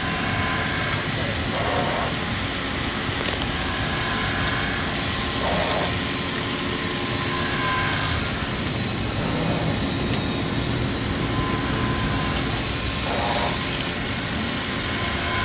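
Matsuura MC 560V vertical machining center running a machining cycle: a steady machine hum with thin high tones, and a short burst of noise that repeats about every four seconds. A single sharp click about ten seconds in.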